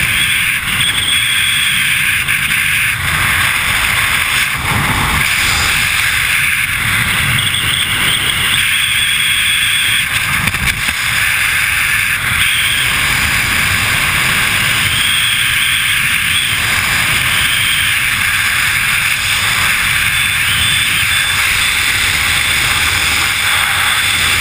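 Loud, steady rush of freefall wind buffeting a helmet camera's microphone during a wingsuit flight.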